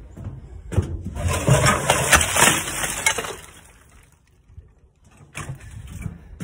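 Loose renovation debris dumped out of a plastic garbage pail into a bin. It is a loud rattling rush full of small impacts, starting about a second in and lasting about two and a half seconds.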